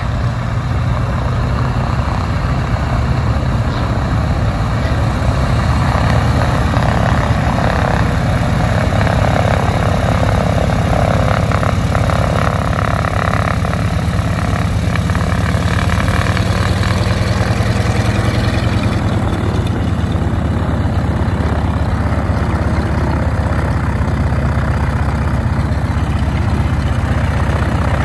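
The twin radial engines of a Beechcraft Model 18 running steadily at idle.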